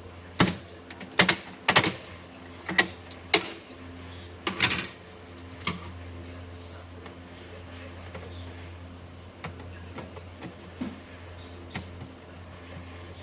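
Sharp clicks and knocks of hard plastic parts being handled on a Brother inkjet printer during disassembly, several in quick succession in the first few seconds, then fewer and fainter ones, over a steady low hum.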